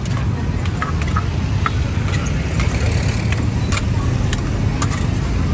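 Street ambience: a steady low rumble of road traffic and engines, with scattered sharp clicks over it.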